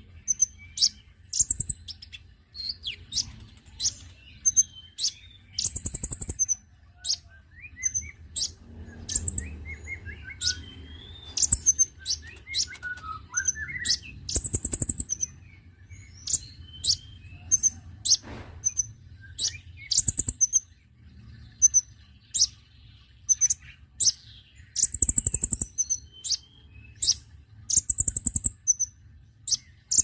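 Male kolibri ninja (konin) sunbird singing: a rapid string of short, sharp, very high chirps repeated all through, broken near the middle by a lower, falling twittering phrase.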